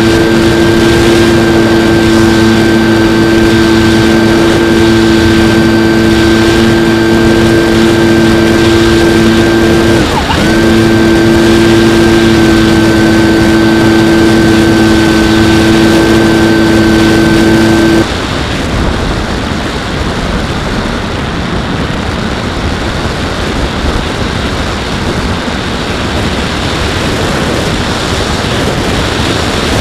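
Skywalker X-8 flying wing's pusher motor and propeller running at a steady pitch over rushing wind on the onboard camera's microphone, with a brief dip about ten seconds in. About two-thirds of the way through the motor cuts off, leaving only the wind noise of the plane gliding.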